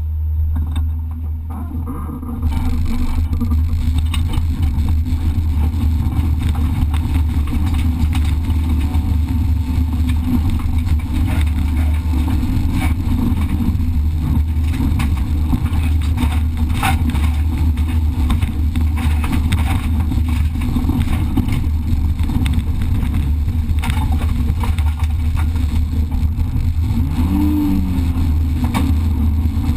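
Race car engine heard from inside the cabin, idling at a standstill, then launching hard about two and a half seconds in and running at high revs over a dirt track. Scattered sharp knocks come through from the rough surface, and there is a brief rise and fall in engine pitch near the end.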